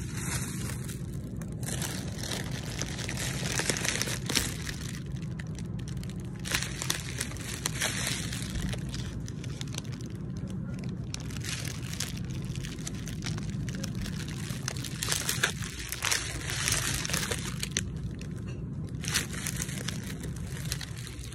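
Irregular rustling and crinkling of the phone being handled and rubbing against clothing close to the microphone, over a steady low hum of building machinery.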